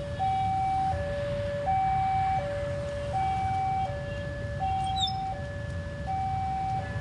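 Railway level-crossing warning alarm sounding: an electronic two-tone signal alternating steadily between a higher and a lower note, each held for under a second, the warning that a train is approaching and the crossing is closing. A low traffic rumble runs underneath.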